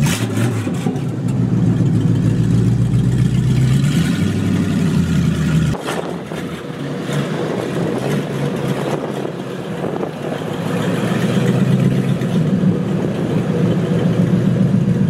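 Dodge D100 pickup's engine running, its note rising and falling, with an abrupt change about six seconds in.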